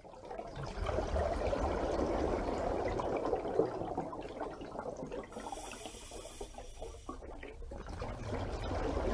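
Rushing water noise that eases off about halfway through and builds again near the end.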